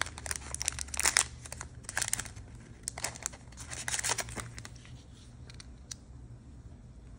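Plastic packaging crinkling and tearing as a pack of small blank art paper cards is unwrapped by hand. The rustling comes in uneven bursts for about four seconds, then thins to a few light paper rustles and taps as a card is laid down.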